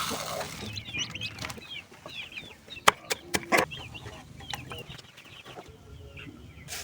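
Chickens clucking and cheeping in many short, high calls. A few sharp knocks come about three seconds in.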